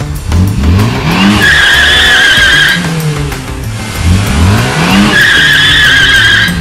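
A car engine revving up and then its tyres squealing loudly for about a second and a half. The rev and squeal happen twice, about three and a half seconds apart, over background music.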